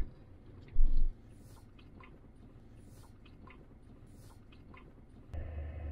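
Jeep Wrangler rolling slowly along a grassy dirt trail, heard from inside the cabin: low road noise with faint scattered crackles and ticks, and one dull low thump about a second in.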